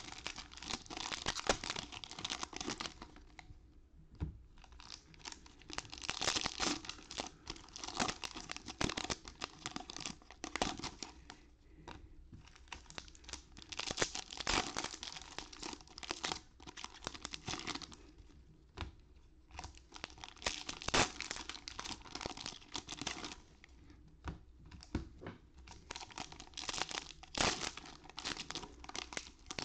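Foil wrappers of Topps Stadium Club baseball card packs being torn open and crinkled by hand, in spells of a few seconds with short pauses between.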